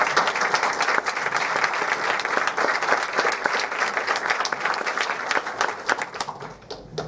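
Audience applauding: dense clapping that thins out about six seconds in, ending in a few scattered claps.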